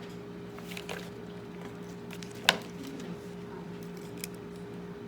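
Steady low electrical hum with a few faint clicks, and one sharp knock about halfway through.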